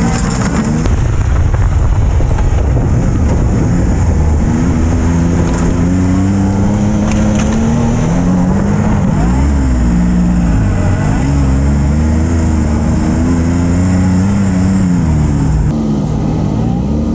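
Can-Am Maverick side-by-side's turbocharged three-cylinder engine heard from the cockpit while driving a rough trail, revving up and down repeatedly as the throttle comes on and off. The sound changes near the end as the recording switches to an outside view.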